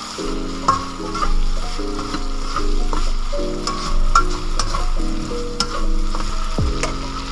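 Diced Spam, carrots and peas sizzling in a wok as a slotted spatula stirs and tosses them, with sharp clicks and scrapes of the spatula against the pan several times.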